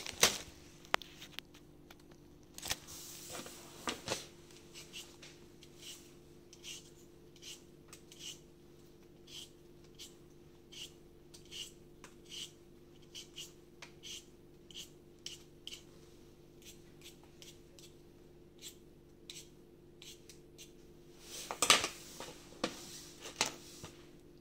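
Short scraping strokes of a potato being peeled by hand, a little more than one stroke a second. Louder handling knocks and rustles come at the start and again near the end.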